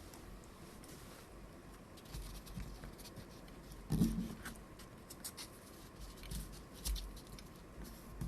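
Faint scratching and light tapping of small hand tools working over a camera body, cleaning out old foam light-seal residue, with a soft knock about halfway through.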